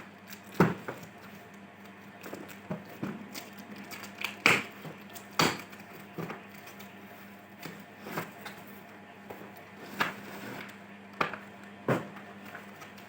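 Scattered sharp clicks and knocks at uneven intervals, as of hard plastic objects being handled and set down, over a low steady hum.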